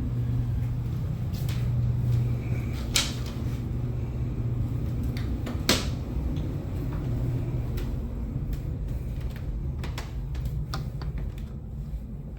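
A steady low hum with scattered sharp knocks and clicks, the two loudest about three seconds and nearly six seconds in.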